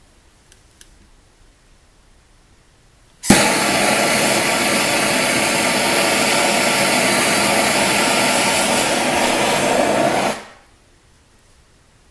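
Handheld MAP gas torch lighting abruptly about three seconds in, then a steady loud hissing flame for about seven seconds while it heats a brass valve's joint on copper pipe for soldering, before it is shut off.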